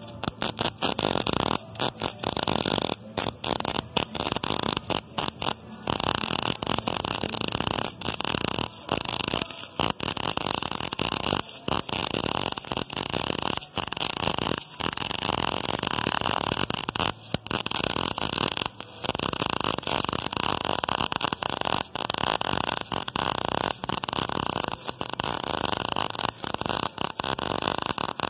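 Wire-feed (MIG) welder arc crackling and buzzing as a bead is laid along a steel seam, broken by brief pauses every second or two where the arc stops and restarts.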